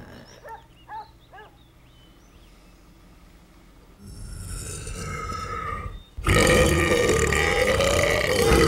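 A person belching: a long, loud burp that starts suddenly about six seconds in, its pitch wavering, after a quieter stretch.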